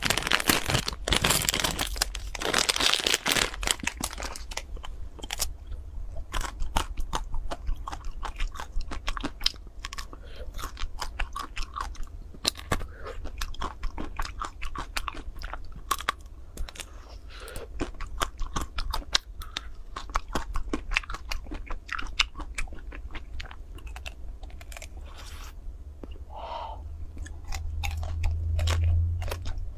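Crunching and chewing as a chocolate-coated ice cream bar is bitten and eaten: a dense run of crackling in the first few seconds, then sharp, separate cracks of the crisp chocolate shell between quieter chewing.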